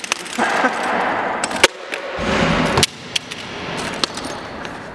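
A hand rummaging through a backpack of skateboard parts: rustling with scattered sharp clicks and clacks of loose hard pieces knocking together, one louder clack about two seconds in.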